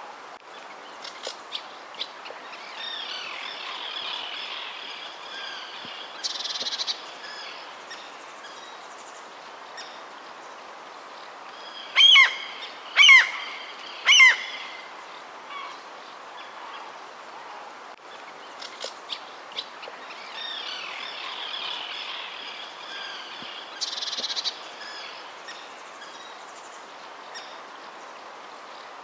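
Wild birds calling over a steady background hiss: scattered chirps and a warbling song, then three loud calls, each sliding down in pitch, about a second apart near the middle. The same sequence of chirps, song and calls comes round again later.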